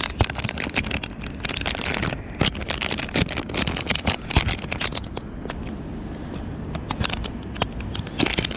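Close handling noise of fishing tackle: irregular clicks, rattles and scrapes as a lure is picked out and fitted, densest in the first half and sparser towards the end.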